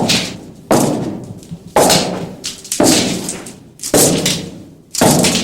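Six heavy echoing thuds, about one a second, each with a long reverberant tail: a horror sound effect of slow pounding blows.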